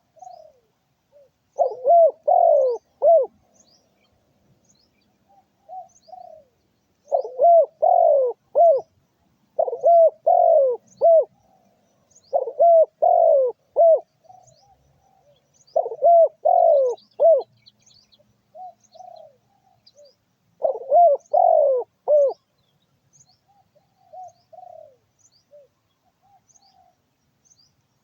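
Doves cooing: loud phrases of several coos, each about a second and a half long, repeating every few seconds, with fainter coos in between. Faint high chirps of small birds run underneath.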